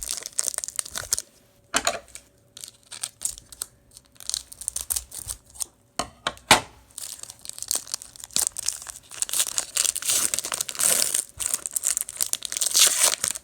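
A sports-card pack wrapper being torn open and crumpled by hand: scattered sharp crackles, one loud snap about six and a half seconds in, then dense, louder crinkling through the second half.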